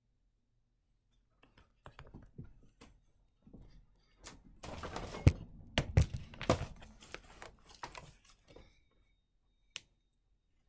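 Irregular clicks, knocks and rustling, busiest and loudest in the middle, with two sharp knocks.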